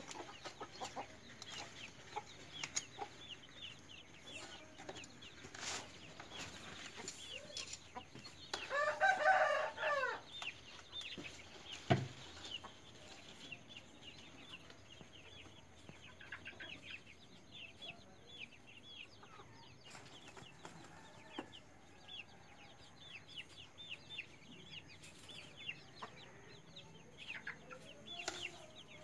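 Chickens clucking and peeping, with many short high chirps throughout. One louder, drawn-out call lasts over a second about nine seconds in, and a single sharp knock comes about twelve seconds in.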